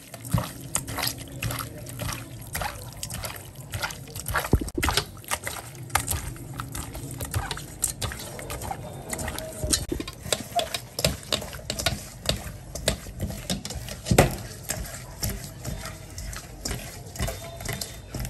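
Water splashing and dripping with many small, irregular knocks and clatters, and one sharper knock about fourteen seconds in.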